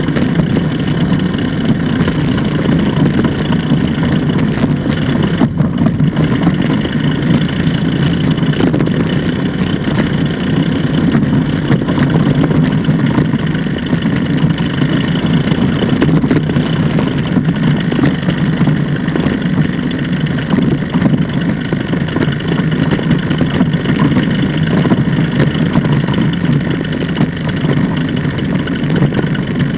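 Ultralight trike's pusher engine and propeller running steadily on the ground.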